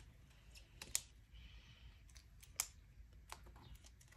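Sharp plastic clicks and taps from clear photopolymer stamps, their hinged plastic case and acrylic stamping blocks being handled on a desk; the loudest about a second in and another a little past halfway.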